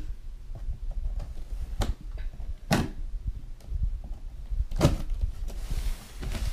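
A package being cut open and unwrapped with scissors: a few sharp snips and tears, with rustling toward the end.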